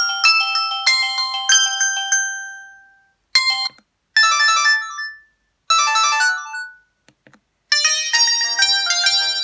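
Electronic ringtone melodies from a Samsung 1088 mobile phone, played one after another. One tune stops about two seconds in, two short snippets follow with gaps between them, and a fuller tune with lower notes starts near the end.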